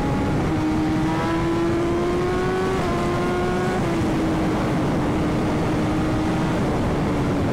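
Superbike engine running at highway speed under heavy wind rush. The engine note climbs a little, drops about three seconds in, then holds steady.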